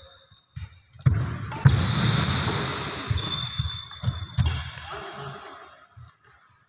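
Badminton rally: rackets striking a shuttlecock a few times, with footsteps on a wooden court. The hits echo as in a large hall.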